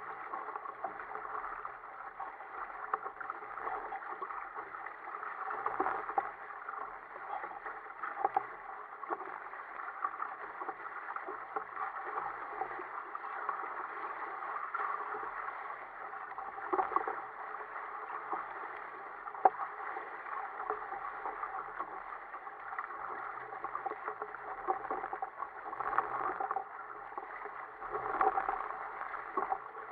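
Water rushing and splashing against the hull of a sail-rigged sit-on-top kayak with outriggers as it moves through choppy sea. The rush is steady, with scattered sharper splashes.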